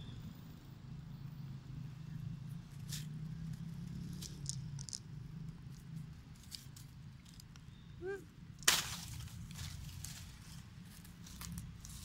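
Macaques moving over dry leaves on a forest floor: scattered light rustles and crackles under a low steady hum. About eight seconds in comes a short squeak, followed at once by a sharp knock, the loudest sound.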